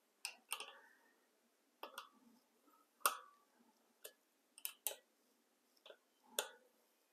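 About ten irregular sharp clicks and ticks from hands and tools working a bicycle disc brake caliper while centering it over the rotor and tightening it down, the loudest about three seconds in.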